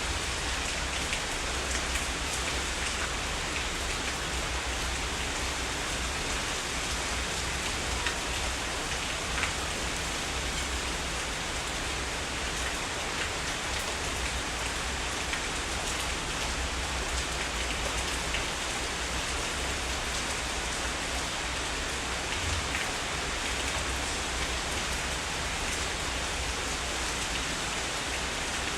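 Heavy rain falling steadily, a continuous hiss of rain with a few individual drops ticking louder now and then.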